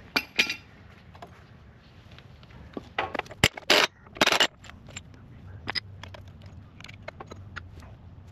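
Metal clinks and scrapes from hands and tools working on a skid steer's bogie wheel hub. There is a cluster of sharper knocks and scraping about three to four and a half seconds in, with scattered light ticks around it.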